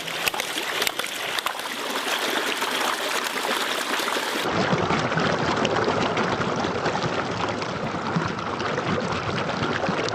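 Running water splashing and flowing, with many irregular small splashes at first; about halfway through the sound changes to a fuller, steadier rush of water.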